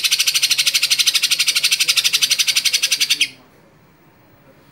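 Cucak ijo (green leafbird) giving a long, fast, evenly pulsed rattling trill, the ngekek call. It stops abruptly about three seconds in.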